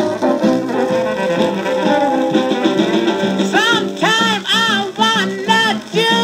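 1952 blues record playing on a 78 rpm Philips portable turntable: a small band with saxophone, piano and drums. About three and a half seconds in, a higher line of bending, swooping notes comes in over the band.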